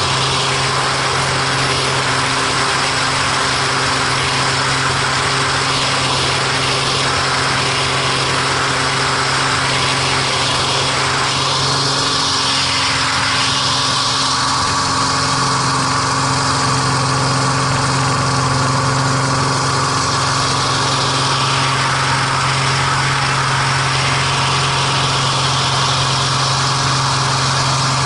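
MX2 aerobatic aircraft's piston engine and propeller running steadily at a nearly constant pitch, heard from inside the cockpit during display flying. A hiss over it shifts in the middle.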